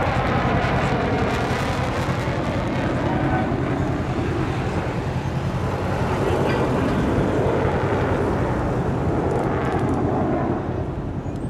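Lockheed Martin F-22 Raptor's twin Pratt & Whitney F119 turbofans in afterburner, a loud steady jet roar overhead. The roar sweeps up and down in tone as the jet manoeuvres, then falls off somewhat near the end.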